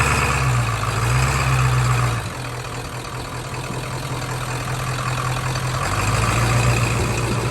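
Ford F-350 pickup engine idling, its note swelling louder for the first two seconds, easing off, then building again about six seconds in.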